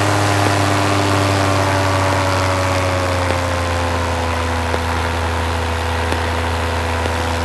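Paramotor engine and propeller droning steadily in flight, the pitch easing slightly lower a few seconds in.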